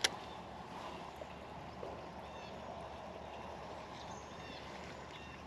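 Quiet outdoor ambience with faint, short high chirps repeating every second or so, and one sharp click right at the start.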